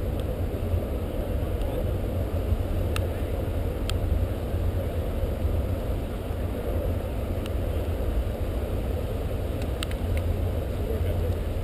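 Wind buffeting an outdoor camera microphone as a steady low rumble, with a few faint sharp ticks about three and four seconds in and again near the end.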